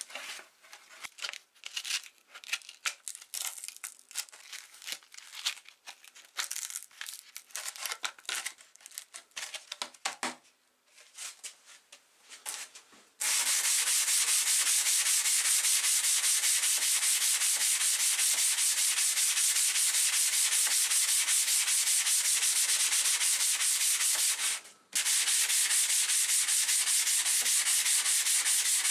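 Irregular rustling and clicks of P100 sandpaper being fitted into a hand sanding block, then, about halfway through, the steady hiss of fast back-and-forth hand sanding on a rusty steel saw blade, with a short pause near the end.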